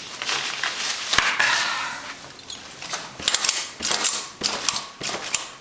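Fabric rustling and a click as a rebounder's cover skirt is pulled back off the frame. Then the mini-trampoline's steel coil springs creak and clink in an even rhythm, about every two-thirds of a second, as someone bounces on the mat.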